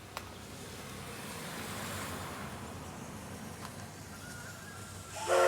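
Steam locomotive of the Paleo Express (C58 363) running with a steady rushing noise. Near the end its steam whistle starts with a loud blast of several tones.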